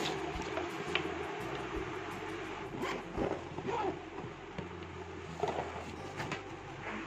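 A child's school backpack being handled and zipped: fabric rustling and the run of a zip, with a few short clicks and knocks as the bag and its water bottle are packed.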